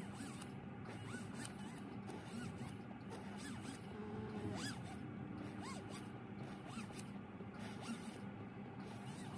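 Faint, irregular scraping strokes with small squeaks and clicks from a fine pointed steel tool worked against a white gold diamond band while its claw settings are cut.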